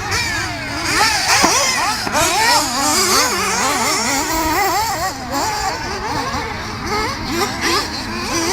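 Several small nitro engines of radio-controlled buggies and trucks revving up and down at once, their pitches rising and falling quickly and overlapping.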